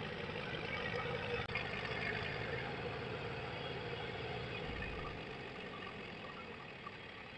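Massey Ferguson 240 tractor's three-cylinder diesel engine idling steadily while the tractor stands still.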